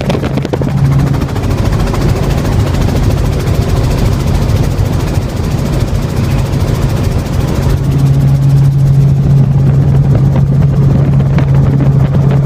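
Helicopter in flight heard from on board: steady engine and rotor drone with a strong low hum, which grows stronger about two-thirds of the way through.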